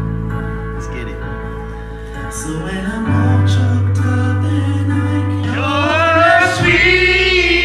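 Music playing, then a man singing into a microphone over the music, holding long wavering notes from about five and a half seconds in.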